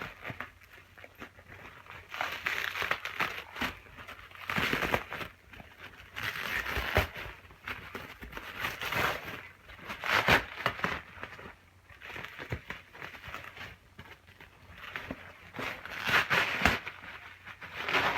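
Plastic packaging being crinkled and torn off by hand, in irregular rustling bursts with sharp crackles.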